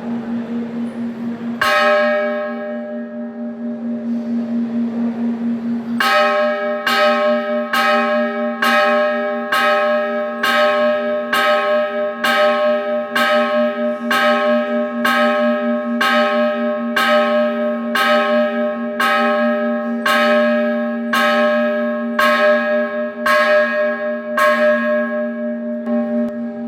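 Hindu temple bell being struck: one stroke about two seconds in, then steady repeated strokes about once a second from about six seconds in. A low hum rings on between the strokes.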